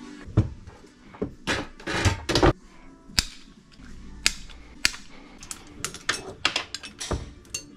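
Metal bicycle parts and tools clicking, clanking and knocking as they are handled: a cluster of clattering knocks in the first couple of seconds, then scattered sharp clicks.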